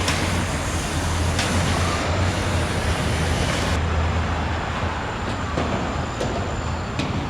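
Road traffic noise: a steady low engine hum with a wash of tyre and road noise, the highest hiss easing a little under four seconds in.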